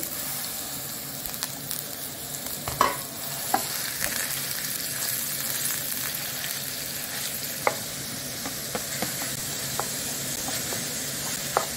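Minced meat sizzling in hot vegetable oil in a frying pan, the sizzle starting as the meat goes in. A wooden spoon stirring and breaking up the meat gives a few sharp taps against the pan, the loudest about three seconds in.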